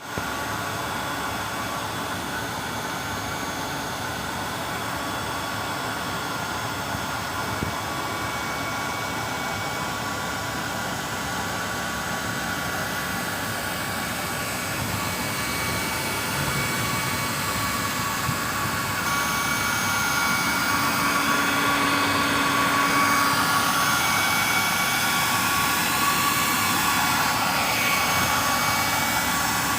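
Steady industrial machinery noise with several high steady whining tones over a dense rumble, growing a little louder in the second half.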